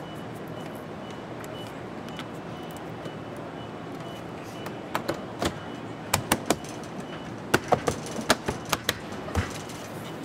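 Plastic clips of a BMW car door's interior trim panel snapping into the door as the panel is pressed and knocked home by hand: about a dozen sharp clicks and knocks starting about five seconds in, over a steady factory hum.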